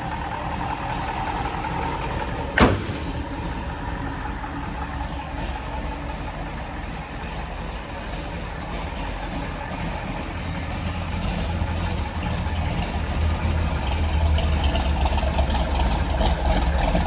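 Chevrolet 396 big-block V8 of a 1969 Camaro SS idling steadily shortly after a cold start, with one sharp click about two and a half seconds in. The low rumble grows louder over the last several seconds.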